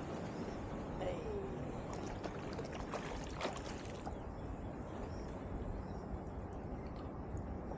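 Steady water noise around a fishing kayak, with a few light clicks and knocks between about two and three and a half seconds in.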